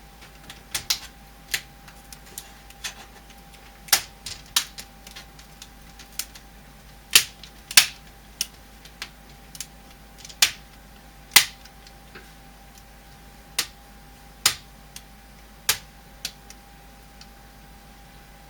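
Plastic snap clips of an HP 15-R132wm laptop's screen bezel clicking into place one after another as the bezel is pressed onto the display lid: about twenty sharp, irregularly spaced clicks, some much louder than others.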